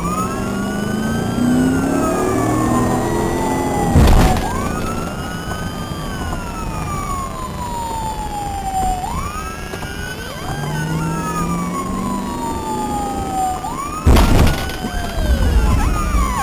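Police car siren in wail mode, its pitch climbing quickly and then sliding slowly down, repeating every four to five seconds, with a second wailing siren crossing it at times. Two loud thumps come about four seconds in and again about fourteen seconds in.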